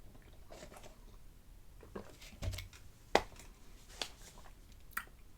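Light clicks and taps of things being handled at a table: about five scattered sharp clicks, the loudest just past the middle, and a dull low thump about halfway through.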